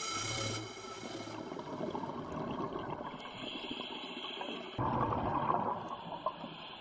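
Underwater rush and gurgle of water and air bubbles on a scuba dive, with a louder bubbling surge about five seconds in. A held pitched tone fades out in the first second.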